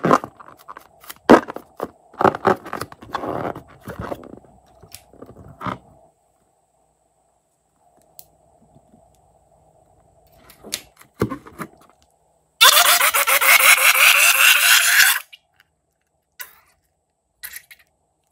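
Rubber balloon full of slime being handled and squeezed, rubbing and clicking. Past the middle comes a loud rasping sputter of about two and a half seconds as the contents are squeezed out through the balloon's neck.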